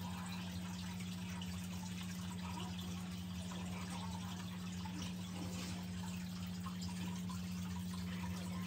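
Steady trickling water over a low, steady hum, with no distinct events.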